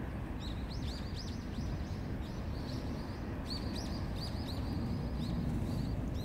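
Small birds chirping, a scatter of short, high calls coming several a second at times, over steady low outdoor background noise.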